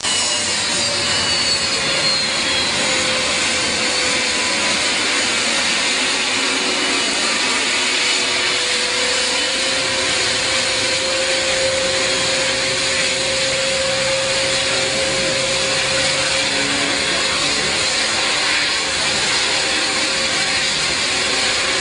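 Jet engines of an amphibious aircraft running steadily: a loud, even rushing noise with a turbine whine that shifts slowly in pitch.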